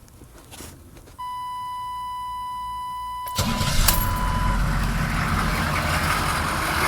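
A steady electronic tone sounds for about two seconds after key-on. Then the 6.2L V8 diesel cranks and catches almost at once, a little over three seconds in, and keeps running.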